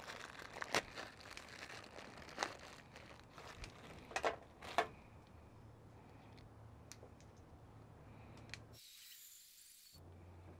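Plastic bag crinkling and a small plastic bottle being handled as it is taken out of the bag, a few sharp crackles and clicks in the first five seconds. After that only a faint low hum remains.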